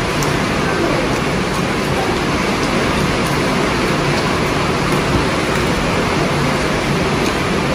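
Heavy rain pouring down, a loud, steady, even hiss with no let-up.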